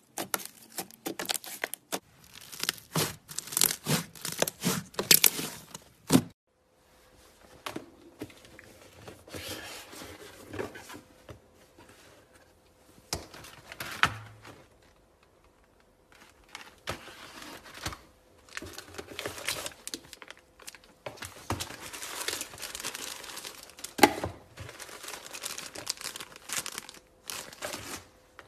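Slime being squeezed, stretched and pulled apart by hand: rapid crackling and popping clicks. Loud for about six seconds, then a sudden cut to quieter, sparser crackling with a faint steady hum behind it.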